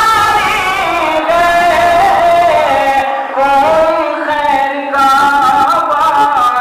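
A man chanting Urdu devotional poetry (pesh-khwani, the recitation before a Shia majlis) into a microphone, in long melodic phrases with held, bending notes and brief pauses for breath.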